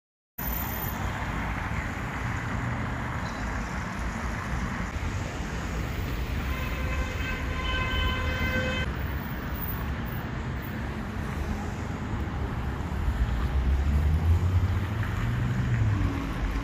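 Steady city traffic noise with a long, level-pitched vehicle horn blast of about two and a half seconds, starting about six and a half seconds in. Near the end a vehicle engine rises in pitch as it accelerates past.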